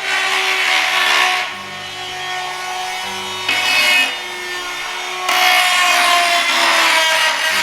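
Handheld electric grinder working against ceramic wall tile: a rough grinding noise that gets louder each time the disc is pressed on, with the motor's tone sagging under load near the end.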